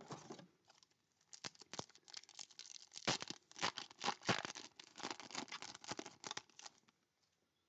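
Foil wrapper of a trading-card pack being torn open and crinkled by hand: a dense run of crackling rustles that starts about a second in and stops near the end.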